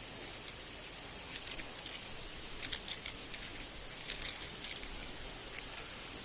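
Steady hiss of light rain, with scattered small sharp clicks and taps, in clusters about a second apart.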